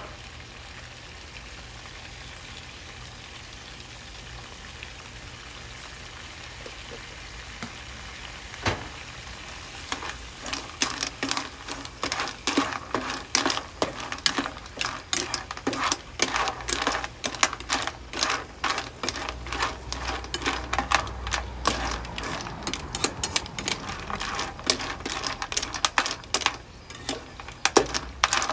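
Food sizzling in a nonstick wok. From about ten seconds in, a spatula stirs and scrapes against the pan in quick, irregular knocks.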